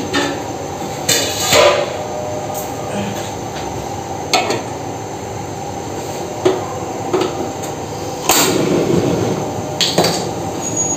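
A large metal cooking pot of water being set onto the grate of a gas burner: a series of separate metal knocks and clanks, the loudest a little after 8 seconds, over a steady background hiss.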